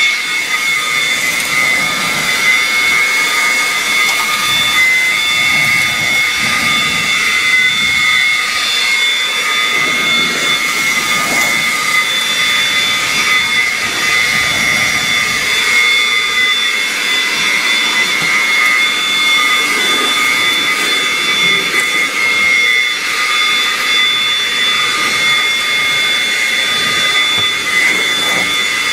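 Greenworks cordless electric leaf blower running steadily: a high motor whine over the rush of air.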